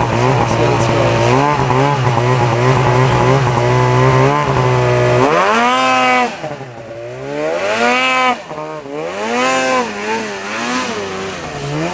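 Two-stroke snowmobile engines: a steady low drone for the first five seconds, then a sled revving up and down several times in quick succession as its rider tries to catwalk it through deep snow.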